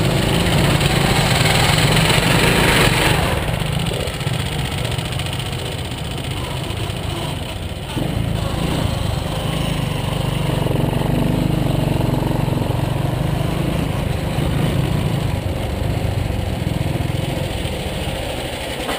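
Honda ATC three-wheeler's single-cylinder engine running under way, with a heavy rush of wind noise for the first few seconds. The engine eases off about four seconds in, picks up again about eight seconds in, then slowly backs off toward the end.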